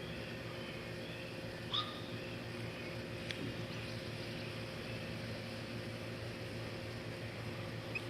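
Steady low mechanical hum, with a brief faint high chirp about two seconds in and a light click a little after three seconds.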